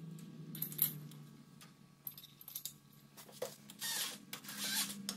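Light metal clicks and scrapes as a tapered bearing cup is worked by hand into an aluminum transmission case, over a low steady hum.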